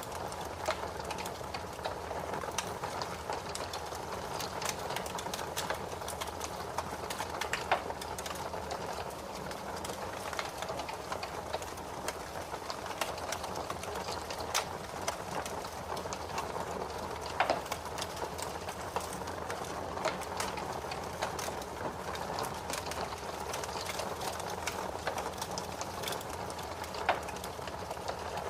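Fire crackling in a fireplace: a steady hiss dense with small pops and snaps, with a few sharper, louder snaps spread through.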